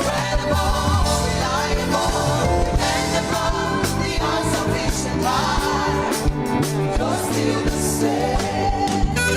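Gospel praise music: a singer's wordless vocal runs over a band with drums.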